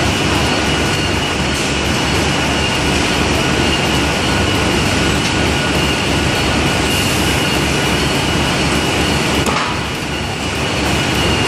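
Steady machine noise of a running Castaldini EDF corrugated-board stacking line and its roller conveyors, with a constant high whine and a few faint clicks.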